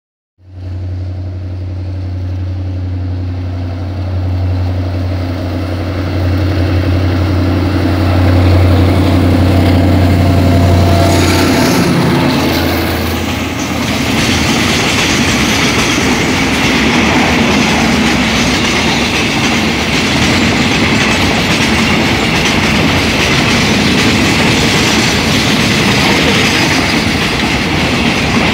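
An Alsthom ALS diesel-electric locomotive approaching and passing with its engine running, a strong low drone for about the first eleven seconds. Then a long string of loaded oil tank wagons rolls past with steady wheel-on-rail rumble and clickety-clack.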